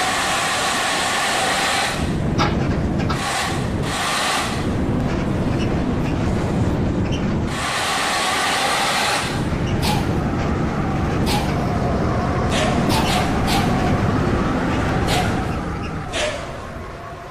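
Bus engine and road noise, a loud steady rumble with a few short sharp noises, fading near the end.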